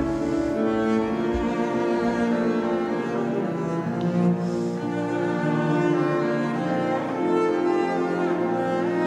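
Double bass played with the bow in a slow, lyrical melody of long sustained notes, the left hand high on the fingerboard.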